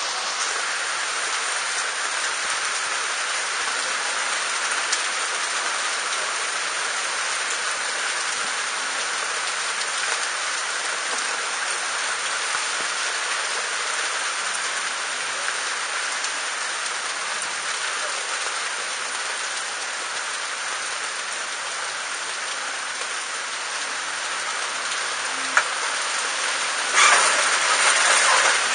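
Heavy rain falling steadily on awnings and a wet street, with a louder rush of noise near the end.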